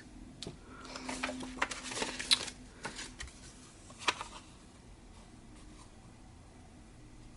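Paper being handled on a craft table: light rustling and small clicks, the sharpest click about four seconds in, dying down soon after.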